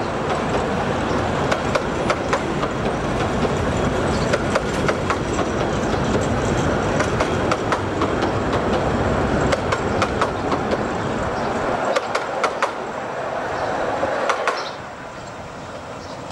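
Carriages of the 15-inch-gauge Romney, Hythe & Dymchurch Railway running over the track, a steady rumble with irregular sharp clacks as the wheels cross rail joints and pointwork. The running noise drops away sharply near the end.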